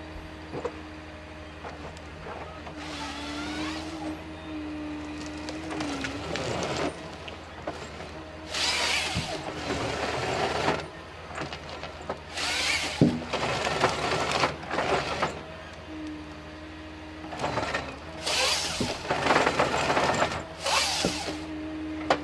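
Forestry harvester with a Log Max harvesting head at work: a steady engine hum and a wavering hydraulic whine, broken three times by loud, harsh bursts of noise lasting a few seconds each as the head works.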